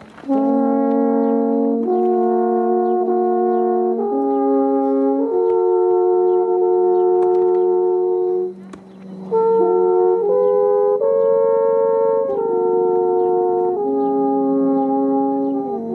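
Slow music of held brass chords, several notes sounding together and moving to a new chord every second or two, with a short break a little past halfway.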